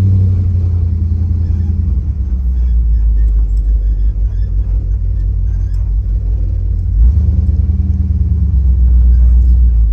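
Car engine and exhaust rumbling low and steady while the car creeps along at low speed, growing louder about seven seconds in as the throttle is opened a little.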